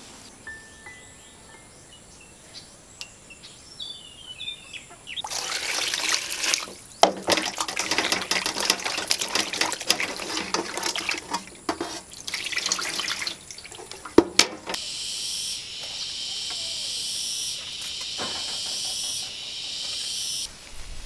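Water splashing and sloshing as hands scrub charred stalks in a steel basin of water, starting about five seconds in after a quiet stretch with a few bird chirps. Near the end this gives way to a tap running steadily for several seconds.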